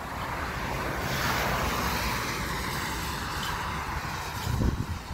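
A car passing on the street, its tyre and engine rush swelling about a second in and slowly fading away. A few low thumps near the end.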